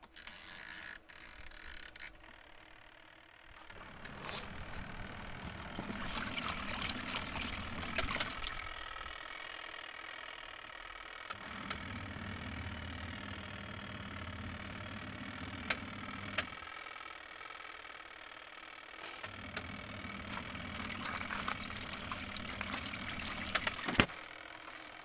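Leisurewise twin tub washing machine's wash tub agitating a rinse load: motor hum and water swishing in runs of about five seconds, with pauses of two to three seconds between as the wash action stops and restarts. A sharp click near the end.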